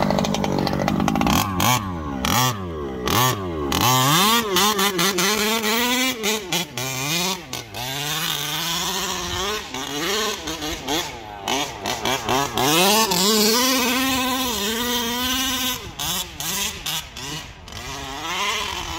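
Small two-stroke petrol engine of a 1/5-scale HPI Baja 5T RC truck, running steadily at first, then revving up and down again and again as the throttle is worked, with short drops back between bursts.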